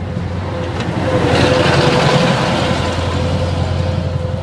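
Road gritting truck with a spreader body driving past, its engine getting louder as it goes by and loudest about two seconds in, then easing off.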